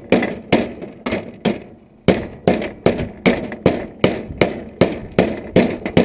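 Hammer striking metal, about two blows a second with a brief pause about two seconds in: knocking the copper parts off a brass water-heater valve.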